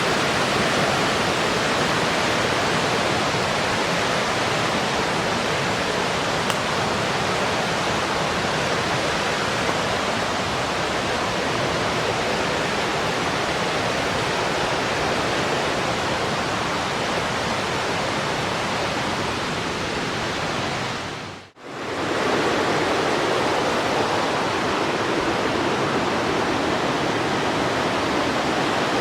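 Steady rushing of a river's flowing water. It drops out suddenly for a moment about three quarters of the way through, then carries on.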